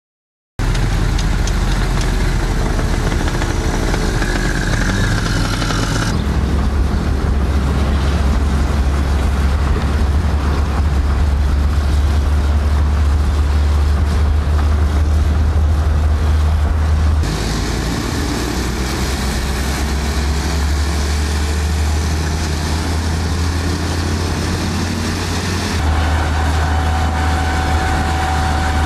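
Road vehicle noise: a loud, steady low rumble of moving traffic that changes abruptly three times. Near the end a faint steady whine joins it.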